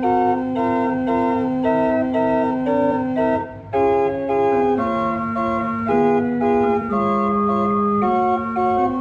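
Church organ playing the postlude after the closing blessing: held chords with moving upper notes over a sustained low note, with a short break about three and a half seconds in.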